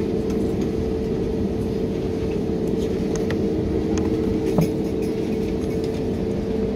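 Cabin noise of an Airbus A320-family airliner taxiing: a steady low rumble from the jet engines with a steady hum over it. A faint knock about four and a half seconds in.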